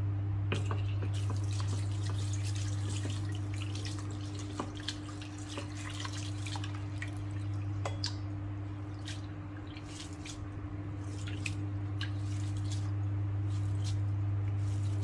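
Hands rubbing and swishing basmati rice grains in water in a glass bowl, with small splashes and drips, busiest in the first half and coming in short clusters later. A steady low hum runs underneath.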